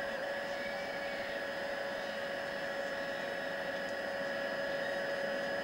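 Steady drone of an old TV broadcast's background sound: an even hiss with a few unchanging whining tones and no clear rhythm or separate events.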